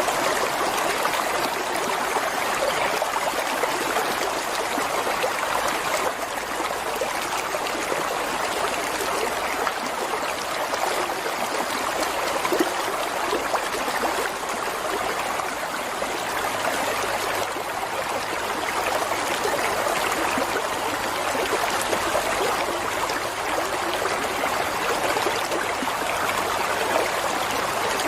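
Running water flowing steadily over rocks, a stream's even rush with small trickling splashes.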